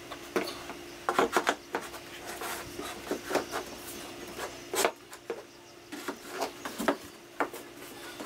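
Wooden crown molding being set into crown-installation jigs and pushed along the wall and ceiling by hand: irregular knocks, taps and rubbing of the molding against the jigs and wall.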